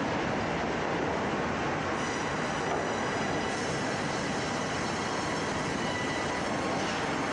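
Twin band-saw headrig running in a sawmill: a steady, dense mechanical noise, with a faint high whine from the saw blades coming in about two seconds in.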